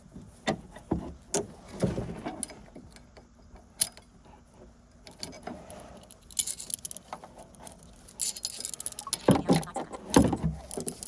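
Vice grips and other hand tools clinking and tapping against a metal brake line fitting in irregular clicks as the grips are set and worked. Louder knocks come near the end.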